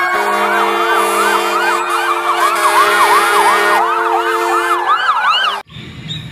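Toy fire truck's electronic siren: a fast warbling wail sweeping up and down about three times a second over a steady hum, cutting off suddenly near the end.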